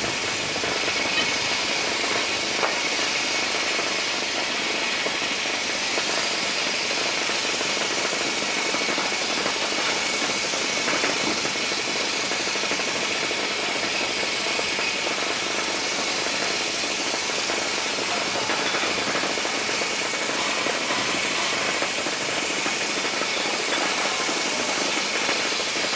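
Paint-and-putty sprayer machine running steadily, a constant mechanical noise with a faint steady whine held throughout.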